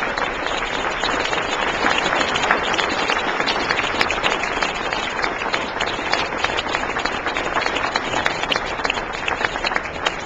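Audience applauding, a dense crowd of hand claps that thins out and dies away near the end.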